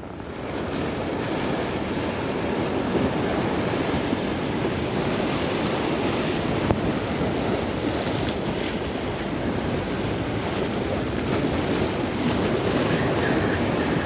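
Sea waves breaking and washing over the rocks at the foot of a jetty, a steady surf, with wind buffeting the microphone.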